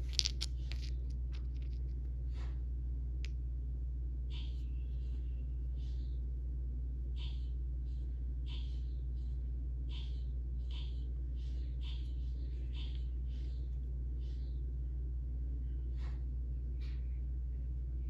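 A steady low hum, with a few sharp clicks in the first second. After that, faint short scratchy sounds come about once a second as fingers handle and turn a small rock.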